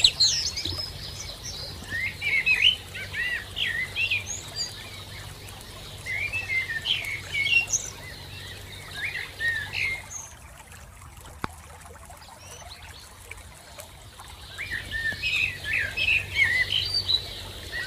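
Several small birds chirping and twittering in quick overlapping bursts, pausing for a few seconds about two-thirds of the way through, over a faint steady background.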